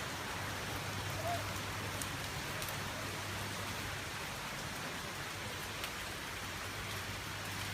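Steady rain falling in a rainstorm: a continuous, even hiss.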